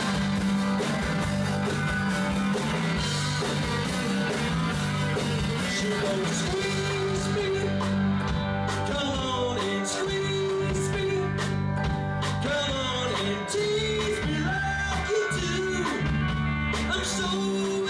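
Live rock band playing with a singer: electric guitar and bass under a sung vocal line, in a mod/Britpop style.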